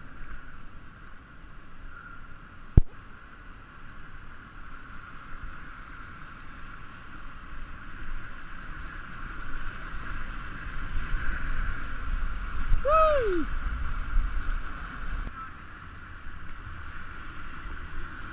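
Rushing river water around an inflatable kayak, swelling louder as it runs through a rapid in the second half. There is one sharp knock a few seconds in, and a short shout about two-thirds of the way through.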